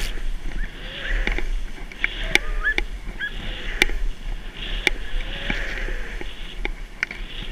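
Skis running through deep powder: a hiss that swells and fades about once a second, with sharp clicks scattered through it.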